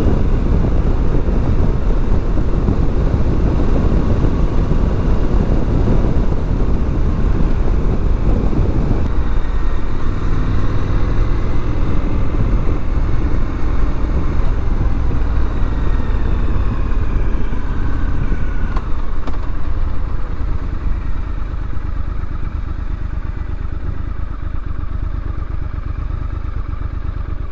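Triumph Scrambler 1200 XC's 1200 cc parallel-twin engine running under way, mixed with wind rush on the microphone. The noise drops about nine seconds in and keeps easing as the bike slows.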